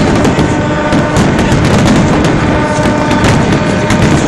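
A fireworks display going off in a loud, dense barrage: rapid overlapping bangs and crackles with no gaps between them. A few steady tones run underneath.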